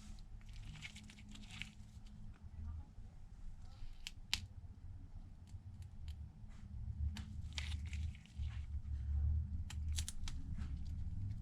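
Thin pry tool scraping and prying under a glued flex cable, peeling it from its adhesive with short scrapes and a few sharp clicks, over a steady low hum.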